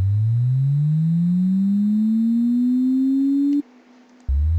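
Synthesized tone, close to a pure sine, gliding steadily up in pitch for about four seconds and cutting off suddenly, then starting again low near the end. It is a synth patch with a pitch envelope meant to imitate a big bike's throttle being twisted.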